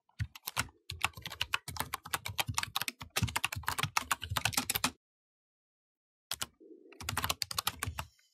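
Computer keyboard typing: a run of rapid key clicks lasting about five seconds, a pause of over a second, then a shorter run of clicks near the end.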